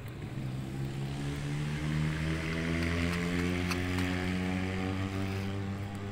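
A motor engine drones steadily as it passes, its pitch shifting slowly, over a soft hiss. There is one faint tick about midway.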